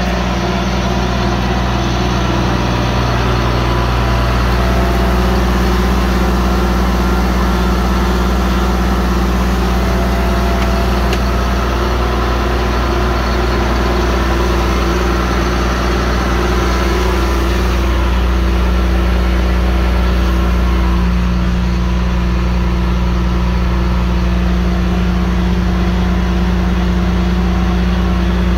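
Caterpillar C7 inline-six diesel in a 2005 Ford F750 idling steadily.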